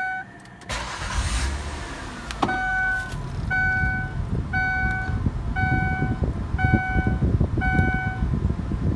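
2004 Ford Taurus 3.0 L V6 being started, cranking and catching about a second in, then idling; the engine has a logged misfire, its cylinder 4 coil just swapped to cylinder 6. A dashboard warning chime sounds six times, about once a second, over the idle.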